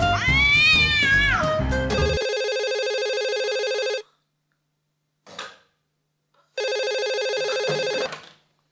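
The end of a short music jingle with a cat-like meow sliding up and down. Then a telephone rings twice, each ring a steady, rapidly pulsing electronic tone of about one and a half to two seconds, with a pause of about two and a half seconds between them.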